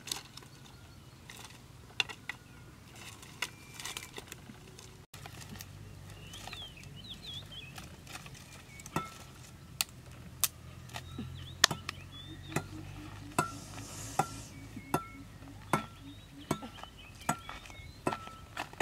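Dry sticks snapping, then a blade chopping firewood sticks in regular sharp strokes, about one every 0.7 seconds through the second half. A few bird chirps come in between.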